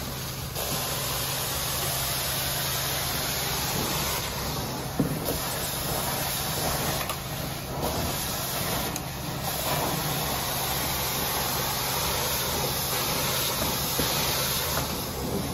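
Carpet extraction wand working the carpet: a steady hiss of spray and vacuum suction over a steady low hum from the machine. The hiss thins briefly a few times as the strokes go on.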